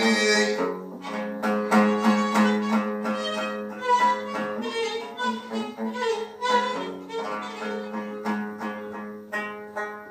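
Moroccan-style violin held upright on the knee, bowing a melody over a steady drone, with a plucked long-necked lute and hand-drum strokes keeping an even beat of about three a second. This is an instrumental passage with no singing.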